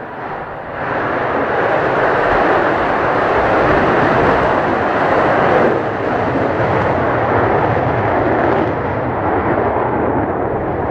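Jet aircraft engine noise that swells quickly and holds as a loud, steady roar, with a slight dip about six seconds in.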